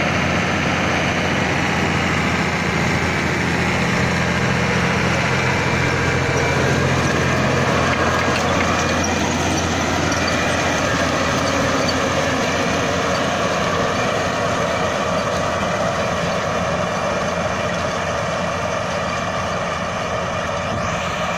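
Tractor engine running steadily as it pulls a 4 m Kverneland TS rapid seed drill sowing faba beans. The engine hum is clearest for the first eight seconds or so, then gives way to a steady rushing noise.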